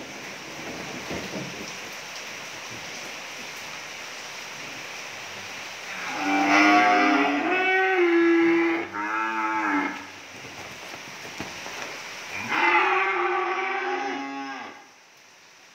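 Young cattle mooing: a long drawn-out moo starts about six seconds in and is followed at once by a shorter one, then another long moo comes a few seconds later.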